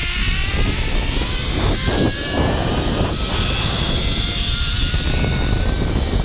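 Zipline trolley's pulleys whining along the steel cable during a ride, the whine rising in pitch as the rider gains speed and then holding steady, over a continuous low rush.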